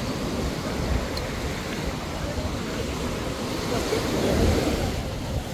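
Surf washing onto a sandy beach, with wind buffeting the microphone; it swells louder about four seconds in.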